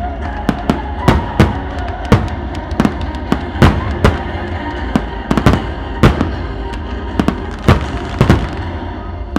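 Fireworks finale: a rapid string of shell bursts, about two sharp bangs a second, over a dense rumble and crackle of shells and fountains, with music playing underneath.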